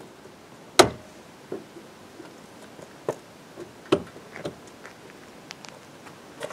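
Scattered sharp knocks and clicks of a kayak stabilizer arm and float being fitted onto the hull, the loudest knock about a second in and another near the four-second mark.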